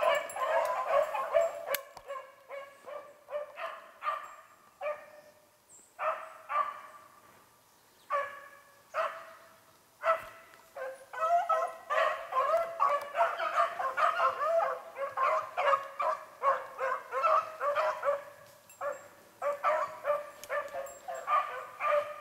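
A pack of beagles baying on a rabbit's track. The cries thin out a few seconds in and nearly stop, then swell back into a steady chorus from about ten seconds in.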